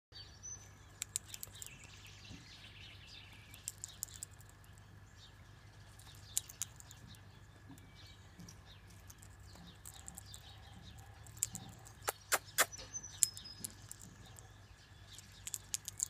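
Irregular sharp clicks and cracks of a male Australian king parrot husking sunflower seeds with its beak on a wooden railing, loudest in a quick run about twelve seconds in. A few faint bird chirps in the background.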